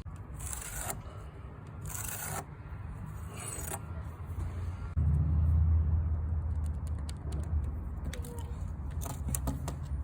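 Workshop handling noise: three short scraping strokes in the first four seconds, then a low rumble with scattered light clicks and rattles from about halfway.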